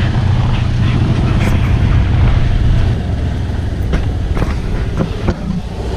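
Engine running steadily with a low hum, which eases somewhat about halfway through. A few sharp clicks or knocks come in the second half.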